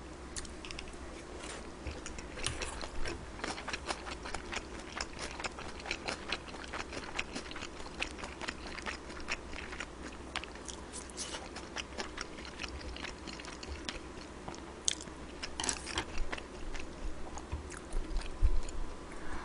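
A person chewing food close to the microphone, with crunchy bites and a steady run of mouth clicks, a little louder near the end.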